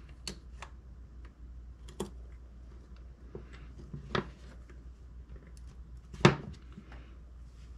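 Scattered light clicks and knocks of small airsoft gearbox parts being handled and set down on a workbench, the loudest about six seconds in.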